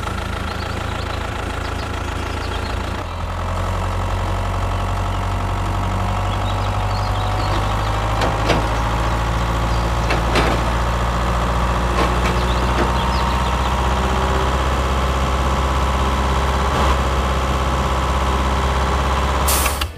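Tractor engine running steadily at idle, its drone getting deeper and a little louder about three seconds in, with a faint slowly rising whine and a few sharp clicks.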